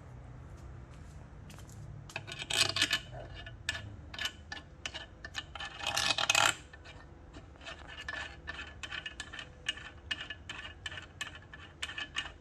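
Small hard parts being handled: a run of light clicks and taps, with two louder scraping rustles about two and six seconds in.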